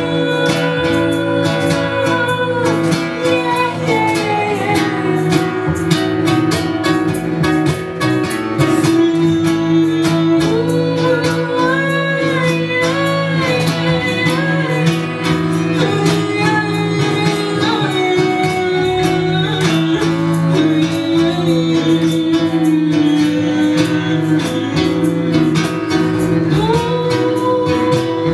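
Live acoustic folk band playing a song: strummed acoustic guitar, cello and upright double bass, with women singing in some passages.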